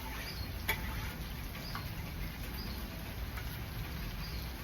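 Short, faint, high chirps of a small night creature repeating about once a second over a steady low rumble, with a single sharp click about a second in.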